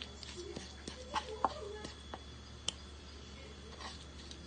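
Stone pestle working chili spice paste in a stone mortar (Indonesian ulekan and cobek), grinding it by hand: a few scattered soft knocks and scrapes of stone on stone.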